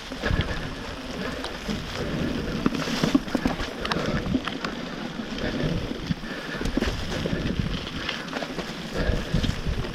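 Mountain bike riding over a wet, rough trail: a steady rumble of tyres on the ground with irregular rattles and knocks from the bike over roots and rocks, and wind buffeting the microphone.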